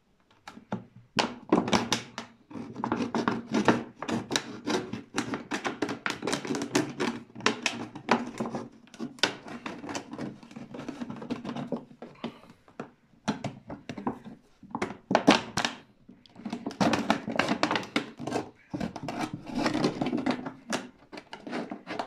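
An ordinary table knife sawing and stabbing through the thin wall of a 5-litre plastic bottle. The plastic crackles and clicks in quick, irregular strokes, with a few short pauses.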